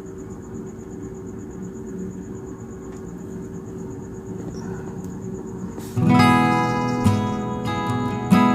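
A steady low hum for about six seconds, then strummed acoustic guitar music starts abruptly and carries on.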